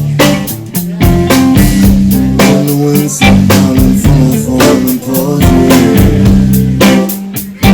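A live rock band playing loudly with no vocals: a drum kit keeping a steady beat under electric guitar.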